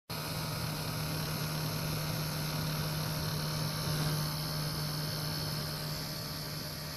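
Small electric motor of a radio-controlled model boat running steadily under way: a constant low hum with an even hiss over it.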